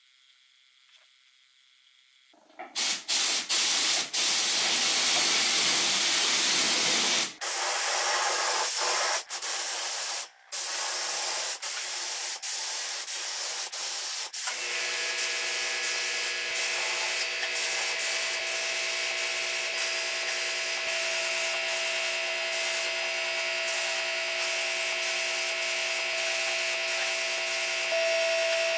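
Compressed-air spray gun hissing, cut off briefly several times as the trigger is released while finish is sprayed onto the shelf boards. About halfway through, a steady machine hum with a high whine starts under the hiss: an air compressor running.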